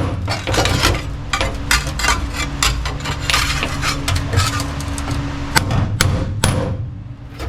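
Hammer tapping on a sheet-metal floor patch panel, setting it into place with irregular sharp strikes that come in quick clusters, over a steady low hum.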